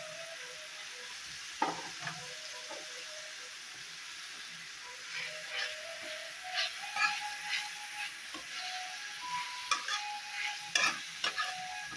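Onions, tomatoes and green chillies frying in oil in a nonstick pan, giving a steady sizzle. A spatula stirs and scrapes the pan in quick clicks, with one sharp knock less than two seconds in, and the stirring gets busier in the second half.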